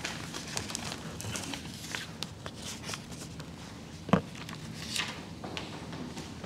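Sheets of paper rustling and being handled at a pulpit microphone, with scattered small clicks and one sharp knock about four seconds in.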